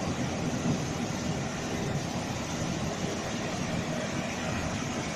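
Automatic car wash machinery running: the rotating brushes and drive motors make a steady, even whirring swish.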